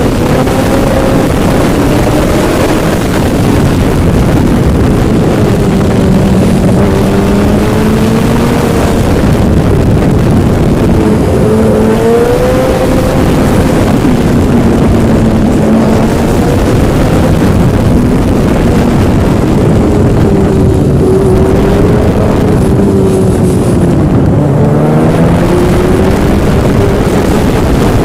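A Yamaha engine running under way, loud and steady, its pitch slowly rising and falling with the throttle over a constant rush of wind or water noise.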